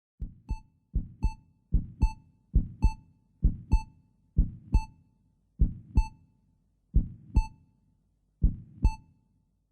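Heartbeat sound effect: paired low lub-dub thumps, the second of each pair with a short clear tone, about once a second and slowing slightly toward the end, with silence between the beats.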